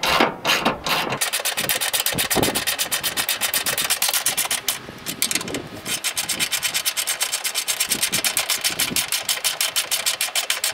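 Hand ratchet clicking rapidly and evenly as bolts are run into the truck's upper radiator support cross member, pausing briefly about five seconds in.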